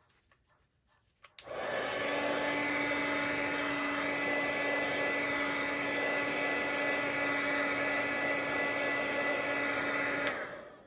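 Handheld electric heat tool blowing steadily with a constant hum, drying wet ink on watercolour paper. It switches on about a second and a half in and off near the end.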